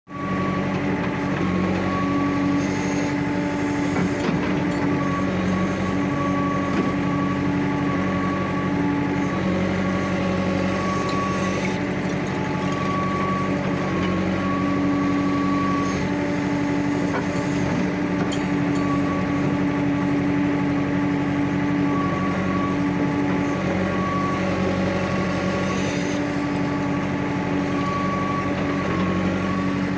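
JCB backhoe loader's diesel engine running steadily, heard from inside the cab, with a whine that swells and fades every few seconds as the loader lever is worked.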